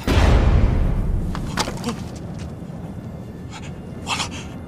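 A sudden loud cinematic impact hit, a deep boom that dies away over about a second and a half, over a steady low rumble of desert wind. A few short sharp sounds follow later.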